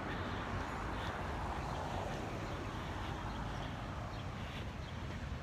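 Steady outdoor background noise: a low rumble with a broad hiss over it, and no distinct event standing out.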